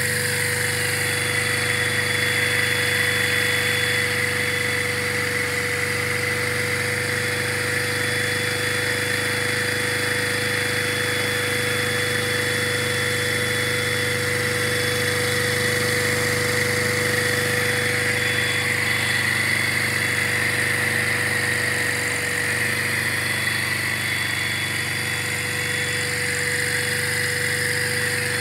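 Lego inline-two vacuum engine running steadily on suction as it drives a tractor with a very low gear ratio under a heavy pulling load. It gives a constant whine with a steady hum beneath it and a rattle of plastic parts.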